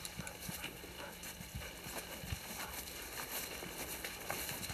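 A Belgian Malinois search dog panting, with footsteps on grass and a few faint knocks.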